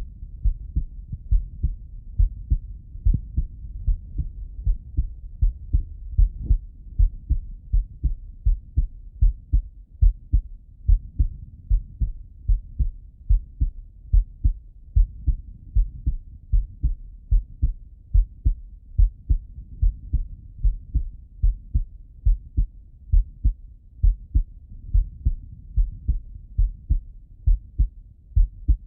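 A man's heartbeat heard through the bell of a Littmann stethoscope: a steady, even rhythm of low, muffled paired lub-dub thumps.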